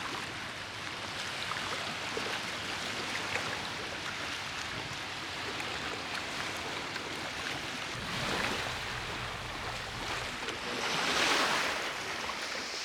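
Sea waves washing on a shore: a steady hiss of surf that swells and falls back twice, about eight and eleven seconds in.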